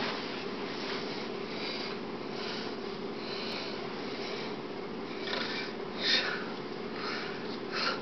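Steady low hum in a small room, with soft breathy sniffs at irregular intervals.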